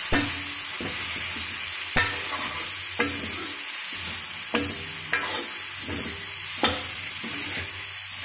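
Capsicum, onion and tomato frying in oil in a metal kadhai with a steady sizzle, stirred with a metal ladle that knocks against the pan about six times.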